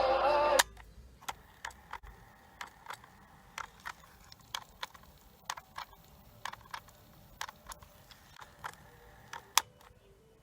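Cassette music playback cuts off with a sharp click, then irregular small mechanical clicks and taps, about two to three a second, from handling the Sony WM-D3 Walkman and its parts.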